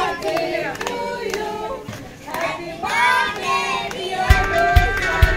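Several voices singing together. About four seconds in, background music with a strummed guitar and a steady beat comes in.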